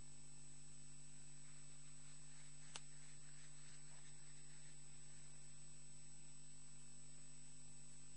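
Steady electrical mains hum with a thin, high-pitched whine, from the audio equipment. A single sharp click comes nearly three seconds in.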